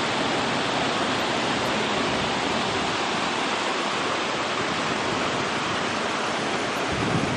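River water rushing over rock slabs: a steady, even rush with no breaks.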